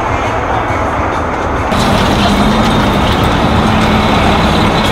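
Heavy-haul semi tractor's diesel engine running steadily, with a deep, even rumble. About two seconds in it becomes louder and closer, with a steady low hum.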